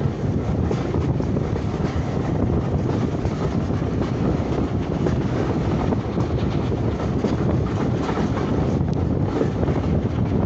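A steam-hauled railway carriage running steadily along the track, heard from an open window: a low rumble from the wheels and track, with wind buffeting the microphone.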